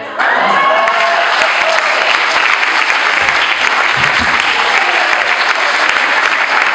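Audience applause breaking out sharply and holding steady and loud, with a short cheer in the first second.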